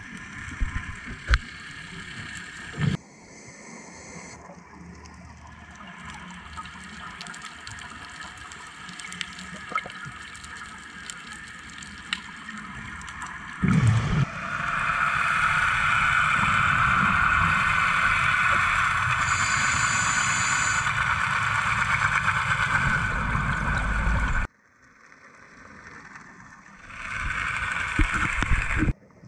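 Underwater sound picked up on a dive camera: muffled water noise with gurgling and a few scrapes and knocks, broken by sudden cuts. From about halfway a louder steady rushing noise sets in and stops abruptly, followed by quieter water noise.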